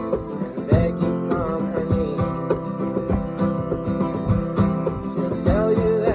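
Acoustic guitar strummed and picked in a country-style song, with a cajon keeping a steady beat under it.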